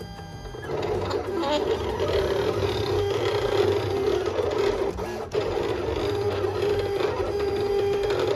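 Silhouette Cameo cutting plotter's motors whirring as it drives the blade and sticker sheet through a cut, with a brief break about five seconds in.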